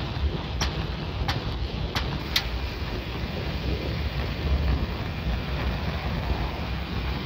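Wind buffeting the microphone and low rumble from a moving bicycle on pavement. For the first two and a half seconds a sharp click repeats about every two-thirds of a second, then stops.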